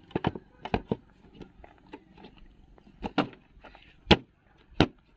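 Scattered clicks and knocks of a KTM RC200 motorcycle's rear seat being handled and pressed down onto its frame, the sharpest knock about four seconds in and another just before the end.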